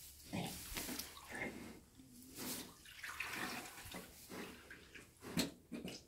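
Wet squelching and rustling from a newborn Shetland pony foal, still in its birth sac, being handled and shifting in straw bedding. The sounds come in irregular short bursts, the loudest a little over five seconds in.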